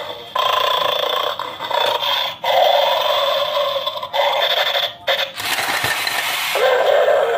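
Battery-powered toy bulldog game playing recorded dog sounds through the small speaker in its bowl. About five seconds in, as an item is lifted from the bowl, the plastic dog springs forward with a clatter.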